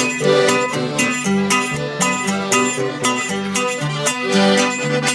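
A piano accordion and a guitar playing a lively instrumental passage, the accordion carrying the melody over an alternating bass line that steps about twice a second.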